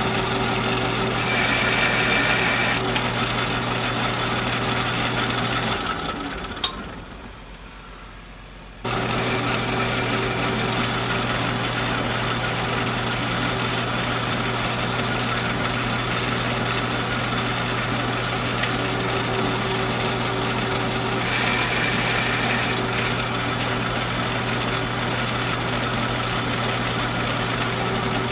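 Atlas metal lathe running under power, its motor and drive giving a steady hum while it takes light threading passes on a steel part. Twice a higher whine rides on top for a couple of seconds. About six seconds in the sound dies away, and about nine seconds in it comes back suddenly at full level.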